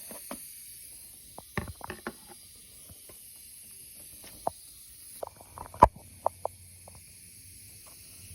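Scattered clicks and knocks of tools and parts being handled during an automatic transmission teardown, a few short groups, the loudest knock about six seconds in, over a steady hiss.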